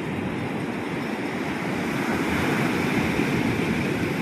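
Sea surf breaking and washing up the beach in a steady rush, swelling a little about two seconds in.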